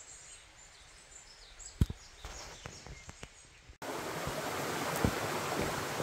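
Quiet forest ambience with a couple of sharp knocks near two seconds in and faint high chirps. After a sudden cut about four seconds in, a mountain stream rushes steadily over rocks.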